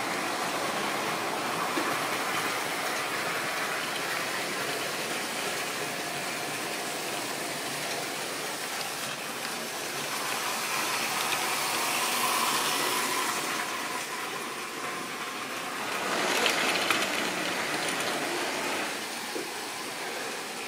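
OO-gauge model train running past on sectional track, its wheels rattling steadily over the rail. The sound grows louder about midway, and again near the end with a cluster of sharp clicks.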